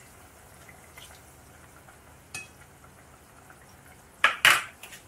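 Chicken sizzling softly in a pan of soy sauce, with a light click about halfway through and two loud, short clatters of a plastic spoon against the dishes near the end.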